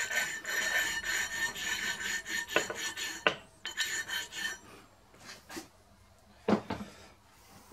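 Oil stone rubbed back and forth over the steel camshaft, buffing the shaft where the timing gear has marked it up: a scratchy scraping that stops about four and a half seconds in, followed by a couple of light knocks.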